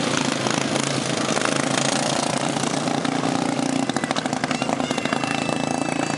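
Several racing lawn mowers' engines running hard as they circle the track, a steady mechanical drone with a rapid, rattling crackle about four to five seconds in.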